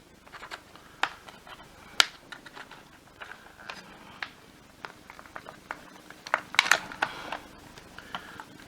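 Plastic clicks, taps and rattles from handling the parts of a vacuum cleaner power nozzle being taken apart: a sharp click about two seconds in and a quick run of clicks and knocks near the end.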